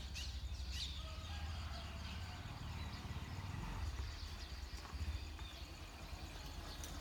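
Scattered birds chirping in short high calls over a low steady rumble.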